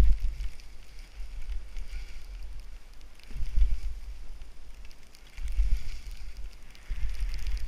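Wind buffeting the microphone in uneven gusts, over a steady hiss of skis turning through deep powder snow.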